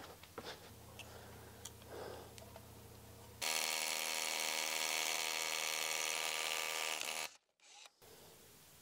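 Cordless drill motor running at one steady pitch for about four seconds, starting about three and a half seconds in and cutting off abruptly. Before it only a faint hum and a few light clicks.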